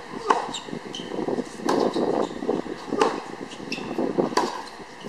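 Tennis rally: the ball is struck sharply by racquets four times, about one hit every 1.3 seconds.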